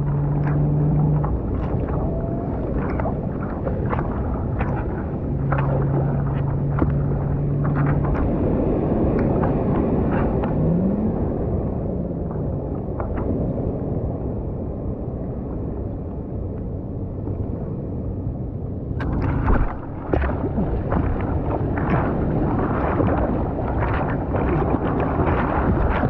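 Seawater splashing and lapping against the nose of a surfboard as it is paddled, with wind on the microphone. A low steady hum sounds twice in the first eight seconds, and about nineteen seconds in the splashing grows louder and brighter.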